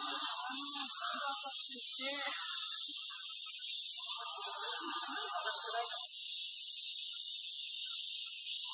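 Loud, continuous chorus of cicadas, a steady high sizzling drone.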